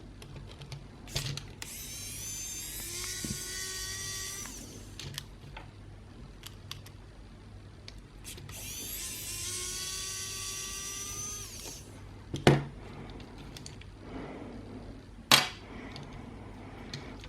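Small electric screwdriver running twice, each run about three seconds of whirring motor whine, as it backs out screws in an Xbox One controller. Two sharp clicks follow later.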